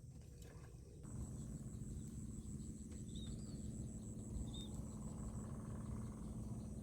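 Faint outdoor ambience: a low steady hum, with a rapid, evenly pulsing insect trill high up from about a second in and two brief chirps in the middle.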